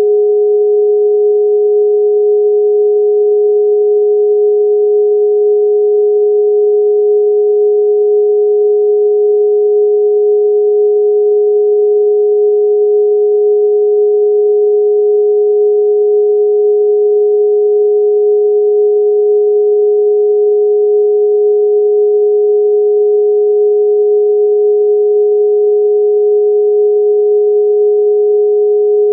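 Steady synthesized sine tone held unchanged, with a fainter, higher steady tone sounding alongside it: an electronic 'frequency' meditation tone.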